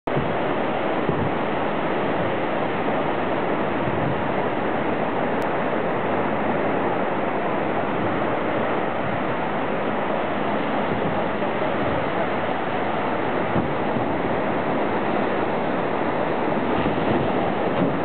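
Steady ocean surf washing along the beach, an unbroken rushing noise.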